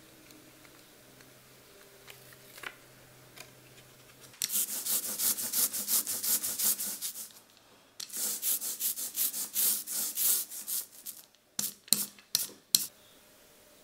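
Quick, rhythmic scratchy rubbing strokes of a hand tool working a rubber printing block or the paper on it, several strokes a second. They come in two runs of about three seconds each, then a few single sharper strokes near the end.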